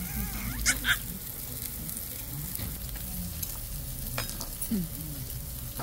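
Steady crackling hiss like food sizzling, under a faint murmur of distant voices, with two sharp clicks close together near the start and another about four seconds in.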